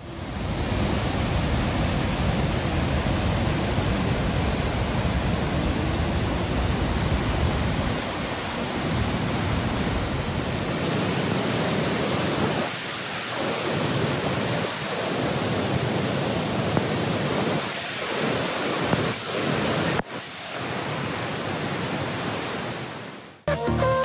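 Rhine Falls, a large waterfall, giving a dense, steady rush of falling water, with a short break about twenty seconds in.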